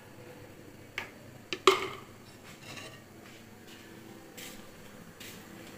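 A few knocks and clinks of a steel saucepan and utensils being handled on a kitchen counter. The loudest is a short clank a little under two seconds in, and fainter taps follow.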